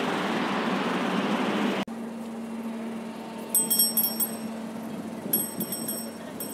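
Outdoor background noise: a steady rushing that cuts off abruptly about two seconds in, giving way to a quieter steady hum with two short runs of bright, high-pitched clinks.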